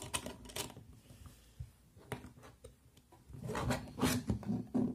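Plastic Lego bricks clicking and rattling as pieces are handled and pressed onto a model. A few clicks come at the start, then it goes quieter, with a denser run of clicks over the last second and a half.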